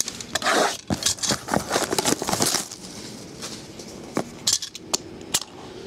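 A sealed trading card box being cut open with a cutter and handled. Crinkling and scraping of the wrapping in two bursts in the first half, with scattered clicks and taps of the box against the counter throughout.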